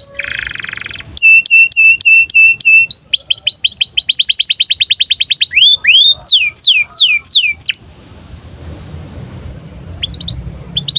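Domestic canary song in breeding mood. It opens with a short harsh buzzy note, then comes a row of short chirps and a fast rolling trill of about eight notes a second, then several falling slurred whistles. The song pauses for about two seconds and picks up again with a few notes near the end.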